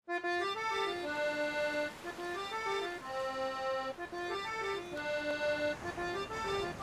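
Instrumental theme tune: a melody of short notes over an accompaniment, the phrase repeating about every two seconds.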